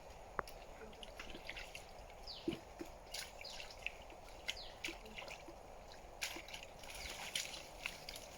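Small splashes and drips of shallow water being stirred by hands during hand fishing, in scattered short ticks and plops, with brief high falling chirps now and then.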